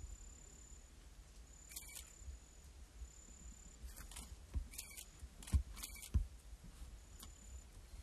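A thin, high insect buzz breaks off and starts again. Scattered sharp clicks and a few dull low thumps come a little past the middle.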